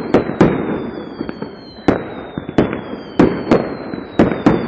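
Fireworks display: about eight sharp bangs of shells bursting overhead at irregular intervals, with a rumbling haze between them.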